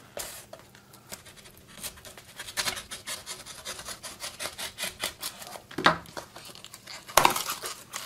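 A tape-wrapped cardboard package being cut open with a small blade: a run of quick scraping and rubbing strokes, with two louder sharp sounds near the end, about a second apart.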